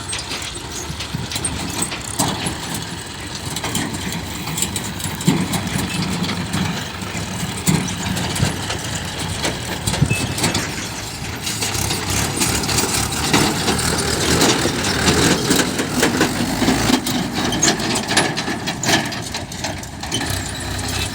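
Diesel engines of a backhoe loader and tractor running steadily at a worksite, with many short knocks and clatters over them.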